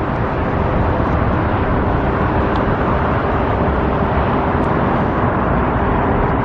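Steady road traffic noise from a busy street, an even rumble and hiss with a faint steady hum.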